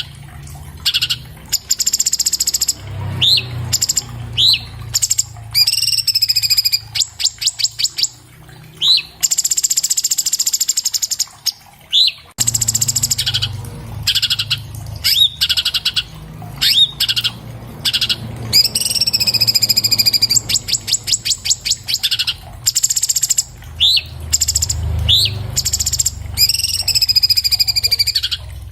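Orange-bellied leafbird (cucak cungkok) singing loud and fast: varied phrases of rapid rattling trills, short upward-swept notes and longer, slightly falling harsh notes, strung together with only brief gaps.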